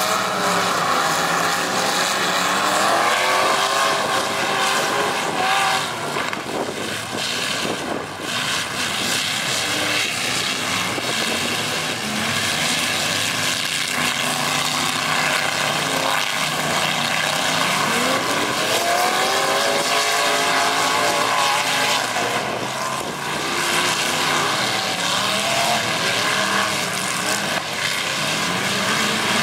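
Several demolition-derby trucks' engines revving hard together, their pitch rising and falling again and again over a steady din.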